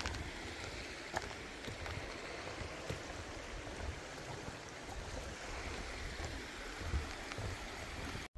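Creek water rushing and gurgling steadily, with low buffeting of wind on the microphone. It breaks off abruptly at the very end.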